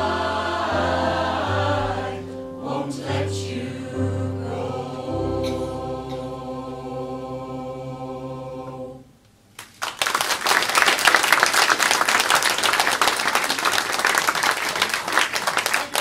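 A mixed choir sings the closing phrases of a song, the final chord ending about nine seconds in. After a short pause the audience breaks into applause, louder than the singing.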